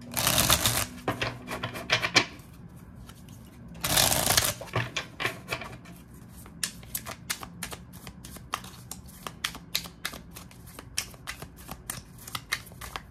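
A deck of tarot cards being shuffled by hand. Two dense bursts of riffling come about four seconds apart, then a long run of quick separate clicks as cards are slid and dropped from hand to hand.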